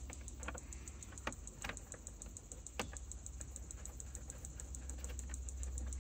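Light, irregular clicks and ticks of a small trim-panel screw being turned in by hand against the plastic dash side panel, over a low steady hum.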